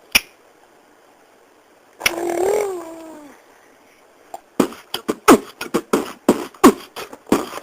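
A person making mouth noises: a short hummed or sung vocal sound that rises and falls, then a quick, uneven string of sharp popping mouth sounds like beatboxing.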